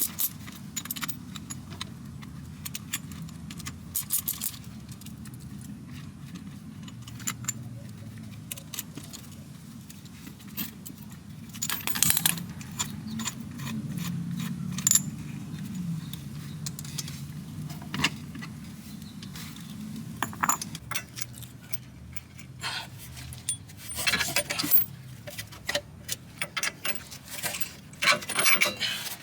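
Metal hand tools and sockets clinking and rattling in scattered clicks and short bursts of rapid clicks, busiest near the end, over a low steady hum.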